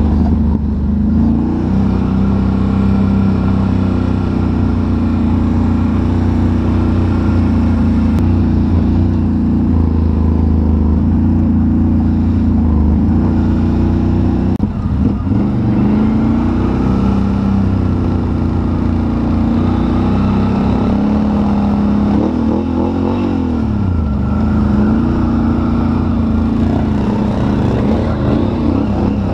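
Can-Am ATV engine running under way, with a steady drone. Its pitch dips briefly about halfway through and rises and falls again about three quarters through as the throttle changes.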